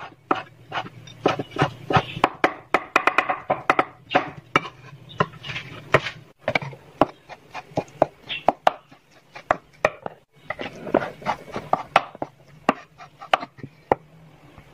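Cleaver chopping raw beef into mince on a wooden cutting board: quick runs of sharp knocks of the blade hitting the board, broken twice by short pauses.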